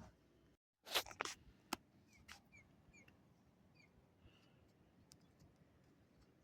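Faint, quiet ambience with a few sharp clicks about a second in, then a series of short, high chirps from a small bird about two to three and a half seconds in.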